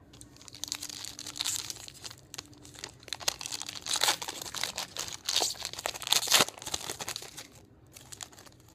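Wrapper of a Topps Finest baseball card pack being torn open and crinkled by hand, crackling on and off. It is loudest about four and six seconds in and stops about a second before the end.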